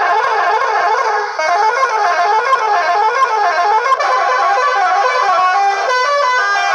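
Electronic telolet bus-horn sound module played through a horn loudspeaker. It gives a warbling tone that sweeps up and down over and over, and about four and a half seconds in turns into a short tune of separate stepped notes.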